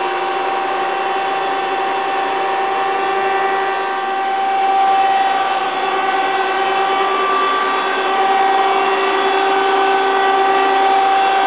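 1986 Okuma & Howa NC4PS CNC lathe running its program in cycle: a steady mechanical hum with several held whining tones.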